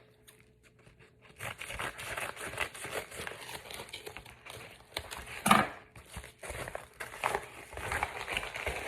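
Jewellery packaging being handled and unwrapped: a rapid run of crackly rustles that starts about a second and a half in, with the loudest rustle about halfway through.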